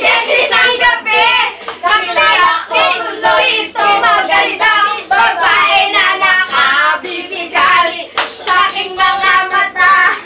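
Two young women singing a song together, with hand claps.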